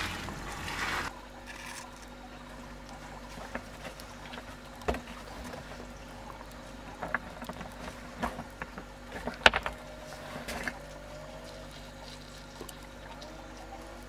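Rounded river stones being set into wet cement mortar on a stone wall: scattered knocks and clacks of stone on stone, the sharpest about nine and a half seconds in, with the scrape of hands working the mortar and a faint steady hum beneath.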